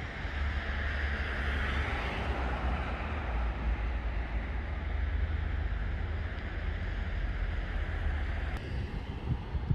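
Wind blowing steadily, with a low rumble of wind buffeting the microphone; the rushing eases near the end.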